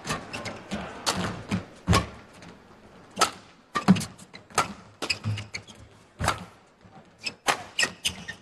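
Badminton rally: rackets striking the shuttlecock again and again in quick, irregular succession, about one to two hits a second, with shoes squeaking on the court floor.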